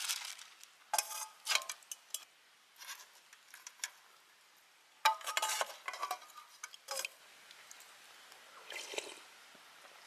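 Stainless steel cup and utensil clinking and scraping against an aluminium camping pot as leftover rice is stirred into soup. Short metallic clinks come in clusters, about a second in and again around five to seven seconds in.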